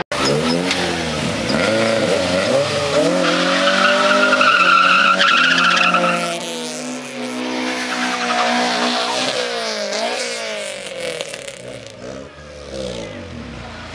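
A car engine revving hard, its pitch sweeping up and down again and again, while the tyres spin and squeal in a burnout-style launch. A steady, loud squeal stands out from about three to six seconds in.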